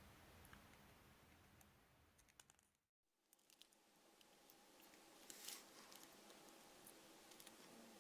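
Near silence: faint room tone with a few small, scattered clicks, a slightly louder cluster of them about five and a half seconds in, and a brief complete dropout about three seconds in.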